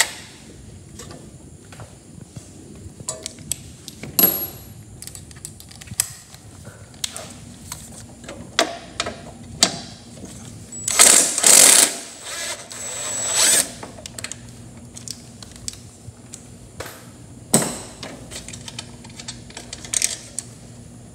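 Cordless impact driver running in short bursts about halfway through, backing out the bolts of a lawn mower's gas-tank bracket. Scattered sharp clicks and knocks of tools and metal parts being handled come before and after.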